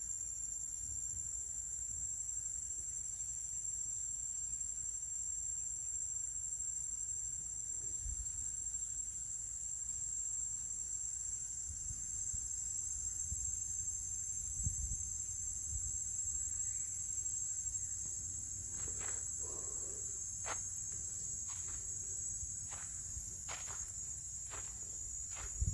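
Steady, high-pitched drone of an insect chorus in dry forest. About three quarters of the way through, footsteps on dry ground join it at a slow walking pace.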